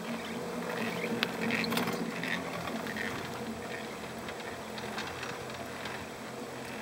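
Pair chairlift running: a steady mechanical hum from the moving chair and haul rope, with scattered clicks and rattles, the thickest cluster early on and a sharper click about five seconds in.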